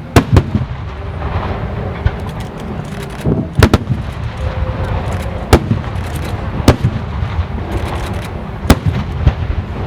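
Aerial firework shells bursting overhead: loud sharp booms at uneven intervals, a pair near the start and another pair about three and a half seconds in, then single booms about every second or two, over a steady crackling haze.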